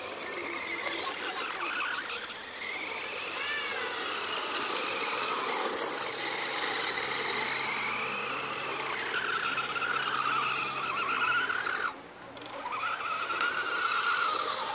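Electric 4WD remote-control car's motor and drivetrain whining, rising and falling in pitch as it accelerates and eases off while drifting on loose dirt, over a hiss of scrabbling tyres. The whine cuts out about twelve seconds in, then winds back up.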